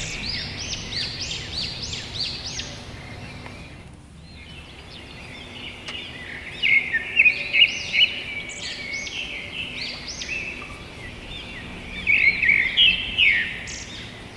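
Small songbirds chirping busily, a rapid run of short high chirps that thins out briefly and grows loudest a little past the middle and again near the end.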